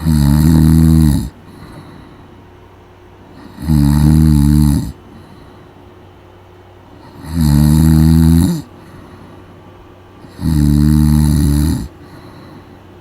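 Loud snoring: four snores, each about a second long, coming every three to four seconds in a steady rhythm.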